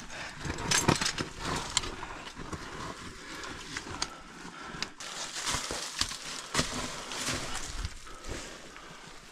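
Rustling and scraping of clothing and gear against rock as a person squeezes through a narrow rock crevice, with scattered knocks and crunches of stones. It is busiest in the first half and dies down toward the end.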